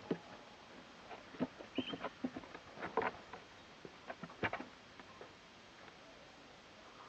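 Gray squirrel feeding on cookie crumbs on a windowsill: irregular small clicks, taps and scratches from its claws and nibbling, busiest in the middle, with one brief high chirp about two seconds in.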